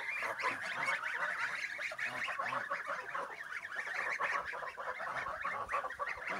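A flock of white domestic geese calling without pause, many short honks overlapping one another.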